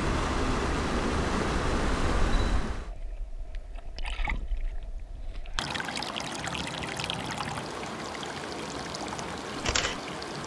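Water rushing over a small creek cascade, a steady noisy rush. It cuts out sharply about three seconds in and returns, quieter, a few seconds later.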